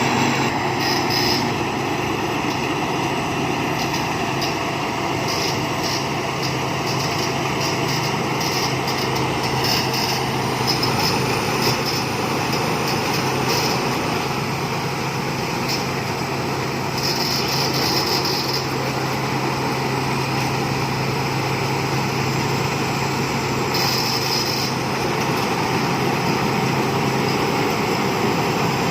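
Thai Seng Yont rice combine harvester running steadily under load, its engine holding a constant drone, with bursts of hissing rattle coming and going several times.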